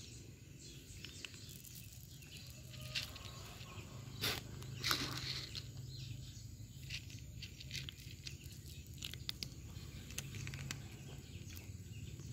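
Cats crunching dry kibble on concrete: many small, irregular clicks, with two louder rustles about four and five seconds in, over a steady low hum.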